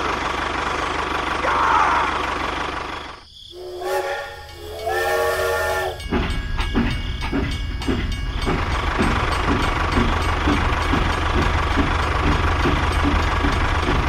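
Toy steam train sound effects: two whistle toots a few seconds in, then a steady rhythmic chuffing at about three puffs a second over a low rumble. Before the whistle, a steady engine-like rumble.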